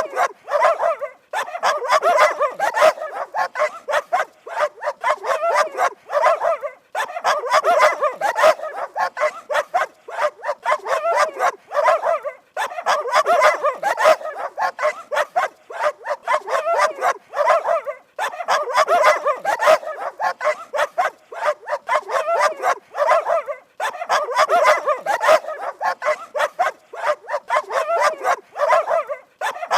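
Dogs barking rapidly and angrily, several barks a second, in runs that break off briefly about every five to six seconds.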